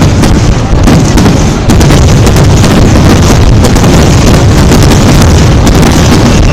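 Dense fireworks barrage: many bangs and crackles following each other so closely that they merge into one continuous, very loud rumble.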